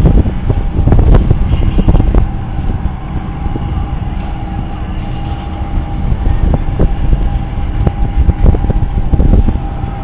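Several small minibike engines running as the bikes ride past one after another, with a thin steady whine through the sound and a heavy low rumble that comes and goes.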